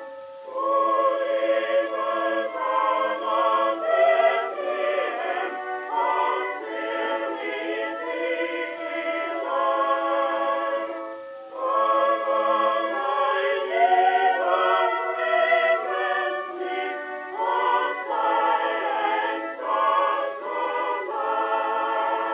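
Music of several voices singing together, choir-like, with a brief lull about halfway through.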